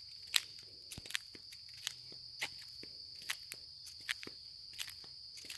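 Footsteps along an outdoor trail, a sharp step roughly every half second to second, over a steady high insect drone.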